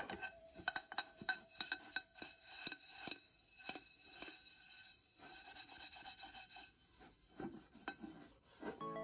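Steel wool scrubber scraping burnt-on residue off the bottom of a metal pot, in quick rasping strokes about three or four a second that ease to softer rubbing about halfway through, with a few more strokes near the end.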